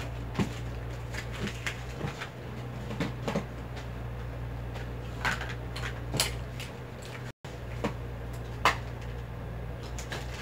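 Light knocks and clicks of small objects and cloth being handled and set down on a desk, scattered irregularly, over the steady low hum of an electric fan. The sound cuts out for an instant about seven seconds in.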